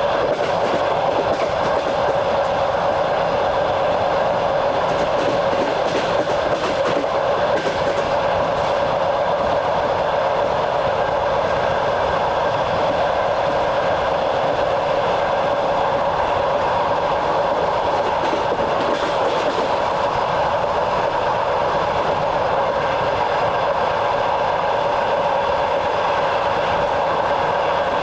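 A passenger train running steadily at speed, heard from on board: a continuous rolling rumble with a steady hum and the clatter of wheels over the rails.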